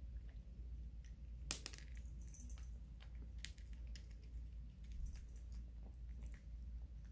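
A cat crunching dry kibble, with irregular crisp crunches and clicks as it chews. The sharpest crack comes about a second and a half in.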